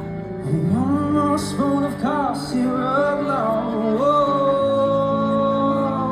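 Male singer performing live over sustained accompaniment chords: his voice swoops up into a few short, bending phrases, then holds one long, steady note near the end.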